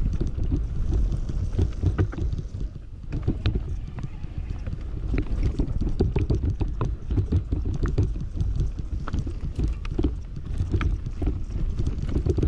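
Commencal Meta Power SX e-mountain bike descending a dry dirt trail. Wind buffets the microphone over the rumble of the tyres, with frequent sharp clicks and rattles from the bike over the bumps.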